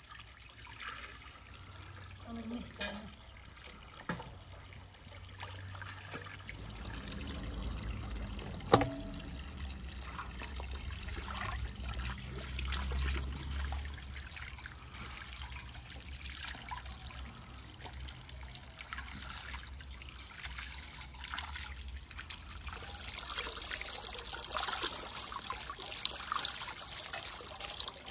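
Water splashing and trickling in a basin as a whole raw chicken is rinsed by hand, with one sharp knock about nine seconds in. Near the end a stream of water pours into the basin, a louder steady hiss.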